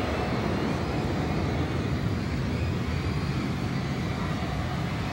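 Large arena audience cheering and screaming in a steady, unbroken wall of crowd noise after a song ends.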